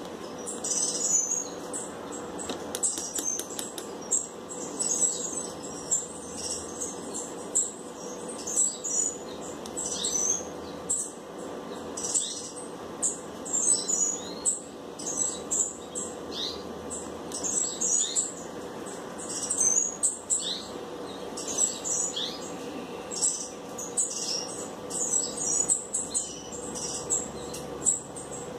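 Small birds chirping and tweeting, with many short high calls coming irregularly and without pause, over a steady low hum.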